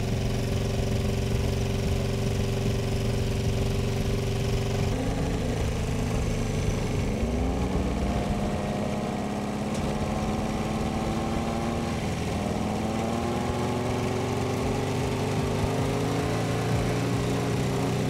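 Lada car engine running with a large tractor turbocharger, feeding it burning cigarettes. About five seconds in it is revved, the pitch climbing over a couple of seconds and then holding steady at the higher speed.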